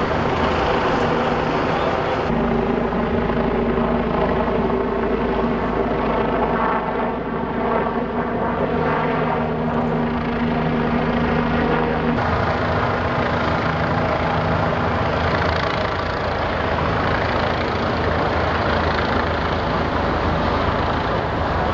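Steady drone of running engines with a constant low hum, changing abruptly about two seconds in and again about twelve seconds in.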